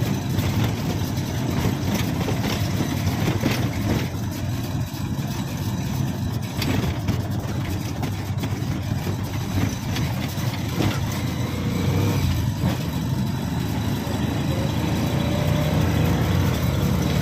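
Small motorcycle engine running steadily as it rides along.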